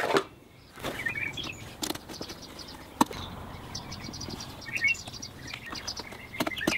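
Hands working rubber oil-cooler hoses and their metal end fittings on a car's front-mounted transmission oil cooler: scattered clicks and knocks, the sharpest about three seconds in. A bird chirps now and then in the background.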